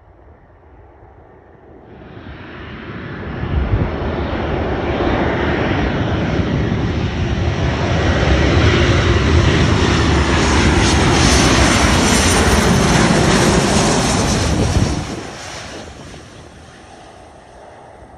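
Jet engines of a Boeing 737-900ER airliner (CFM56-7B turbofans) on landing. The rumble builds over a couple of seconds, holds loud with a steady high whine on top, then drops away abruptly near the end.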